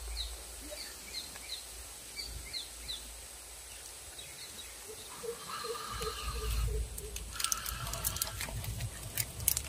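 A bird calling: a run of short, high, falling chirps, about three a second, over the first three seconds. A lower, pulsing call follows about halfway through, then several sharp clicks and a brief noisy patch near the end, over a low rumble.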